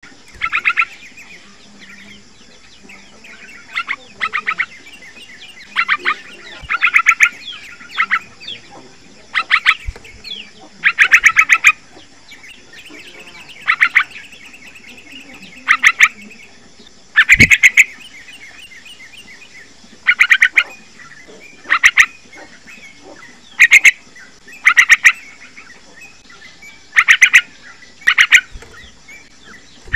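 Young yellow-vented bulbul calling: short bursts of rapid, chattering notes, repeated every second or two.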